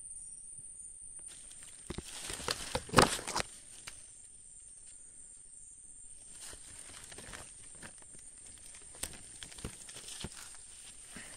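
Footsteps and rustling in dry leaf litter, with a burst of louder crackles and knocks about two to three and a half seconds in, then scattered small crackles of leaves and twigs.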